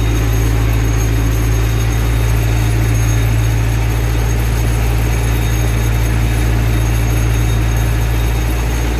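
Zetor tractor's diesel engine running steadily while the tractor drives along, heard from inside the cab as a constant low-pitched engine noise.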